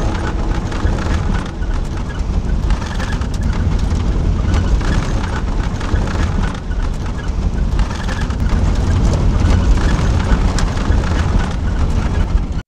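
Steady rumble of a passenger van on the move, heard from inside the cabin: engine and road noise with rushing air.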